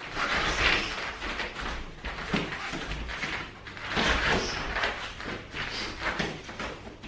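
Light boxing sparring: padded gloves thudding against gloves and arms, and bare feet scuffing on a foam mat, in irregular bursts.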